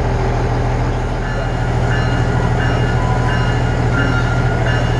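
Nippon Sharyo diesel multiple-unit train idling at a station stop, its diesel engine giving a steady low hum. From about a second and a half in, a faint high ringing tone repeats about every two-thirds of a second.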